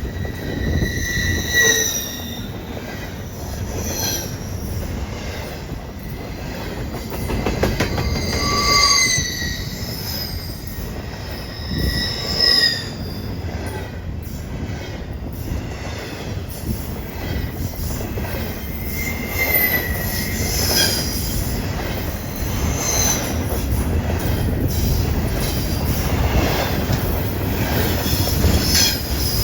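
Norfolk Southern intermodal freight train rolling past: a steady rumble of wheels on rail, with short high wheel squeals every few seconds.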